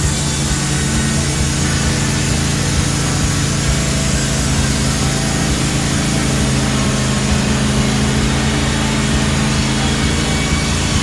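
Wood-Mizer LT15 portable band sawmill running, its engine holding a steady speed with a steady hiss of the band blade over it.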